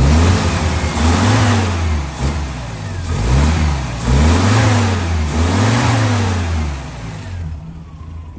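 1956 Austin A50's 1.5-litre B-series four-cylinder engine, freshly started, revved about five times in a row, each rev rising and falling back, then settling to idle near the end. It runs sweetly, with nothing obviously wrong.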